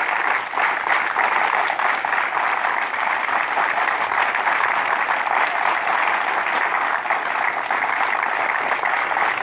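A large group of schoolboys clapping their hands continuously, a steady dense patter of many claps without a break.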